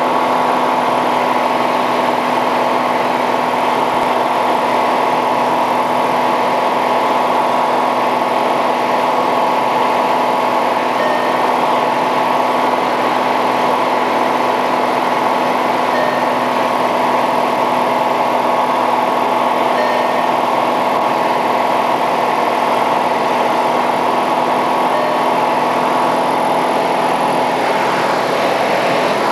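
Piper Cherokee Six's six-cylinder Lycoming engine and propeller droning steadily in flight, heard inside the cabin at a constant power setting.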